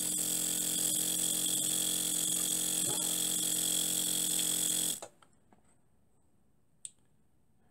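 Miniature two-cylinder double-acting steam engine running fast on compressed air, giving a steady buzzing hum that stops abruptly about five seconds in. A single small click follows near the end.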